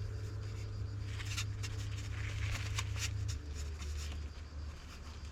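Light clicks and rubbing of fencing wire being twisted by hand into a makeshift split pin on the carburettor linkage. Underneath is a steady low hum that drops in pitch about three and a half seconds in.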